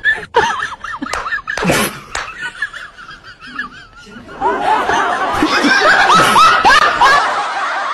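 Laughter sound effect: light snickering giggles at first, then from about halfway a louder, fuller stretch of laughter.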